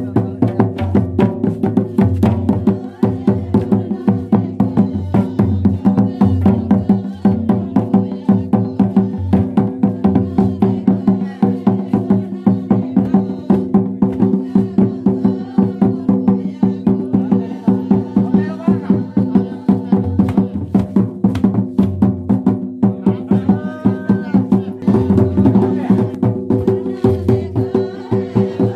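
Santali tumdak' barrel hand drums beaten in a fast, even rhythm, with voices singing along.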